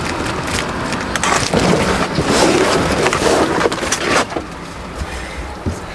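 Vehicle floor carpet and its padding being pulled up and dragged out, a rustling, crackling noise with scattered knocks, loudest from about one to four seconds in.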